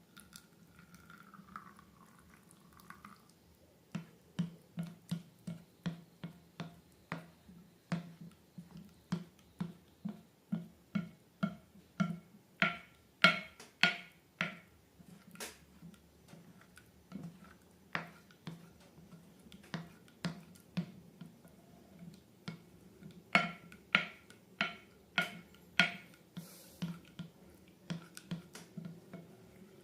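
Slime being squeezed and kneaded by hand, giving crisp wet clicks and pops about twice a second, louder in a few bursts.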